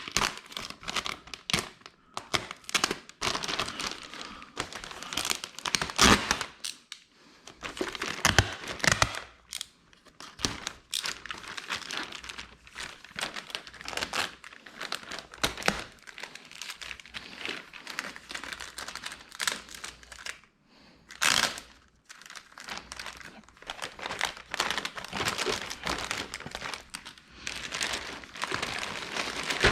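Plastic packaging crinkling and rustling in irregular bursts as it is handled and opened, with a short louder crackle about two-thirds of the way through.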